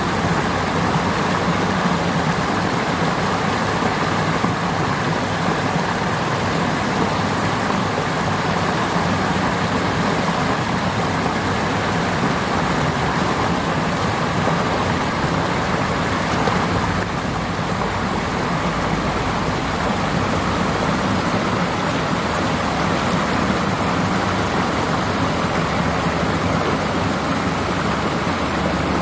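Steady rush of river water pouring over a low concrete weir into a shallow pool.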